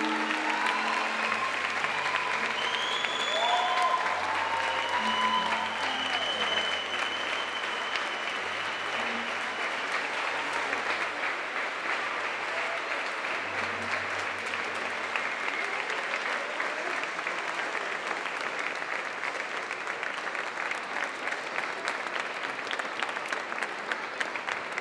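A large audience applauding steadily, with music playing under the clapping for about the first half before it fades out and the clapping goes on alone.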